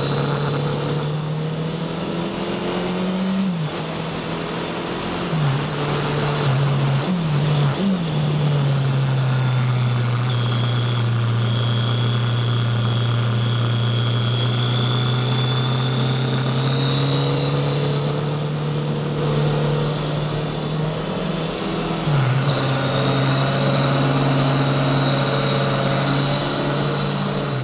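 Kawasaki ZL900 Eliminator's inline-four engine running loud under way, its note climbing and then dropping sharply at several gear changes in the first few seconds and again near the end, with a long steady cruise between.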